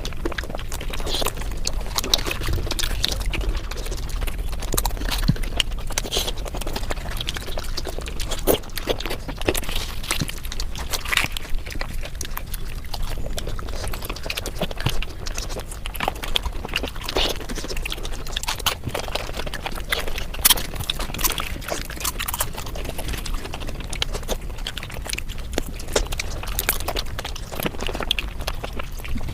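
Mukbang eating sounds sped up about five times: chewing and mouth noises run together into a dense, unbroken stream of rapid clicks.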